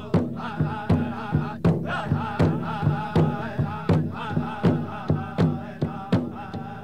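Chanted singing over a steady, evenly struck drum, about two and a half beats a second, in the manner of a Native American powwow song.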